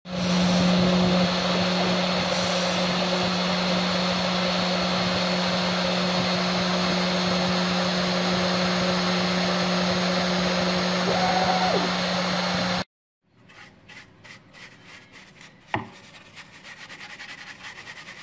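Homemade CNC machine's spindle running steadily with a hum and a high whine as its bit cuts into a copper-clad circuit board; the spindle stops abruptly about two-thirds of the way through. After that, quieter scratchy brushing as a paintbrush sweeps milling dust off the board.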